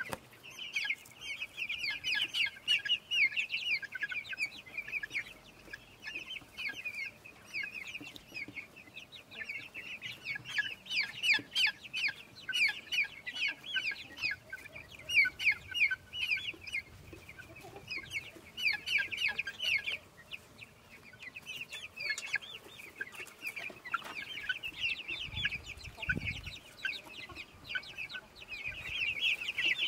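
A flock of chickens calling while foraging: many short, high-pitched calls in overlapping clusters, with brief lulls between bursts.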